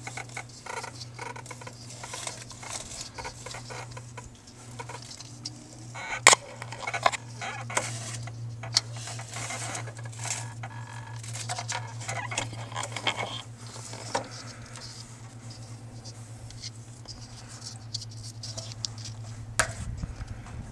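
Small rustles, scratches and clicks of hands wrapping PTFE thread seal tape around a water heater's threaded pipe nipple and handling the plastic tape spool, with a sharp click about six seconds in. A steady low hum runs underneath.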